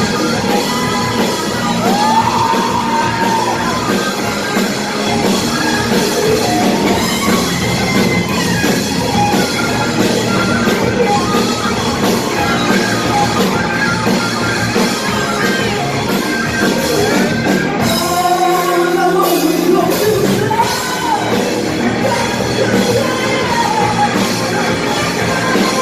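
Rock band playing live in a large hall, a singer singing and yelling over guitars and drums. About two-thirds of the way through, the bass and drums drop out for roughly two seconds, leaving the voice and higher instruments, then the full band comes back in.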